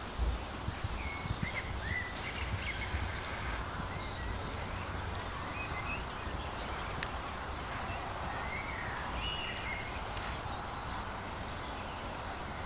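Outdoor ambience: a steady low wind rumble with birds chirping now and then, and a few dull thuds of hoofbeats on the arena surface in the first couple of seconds.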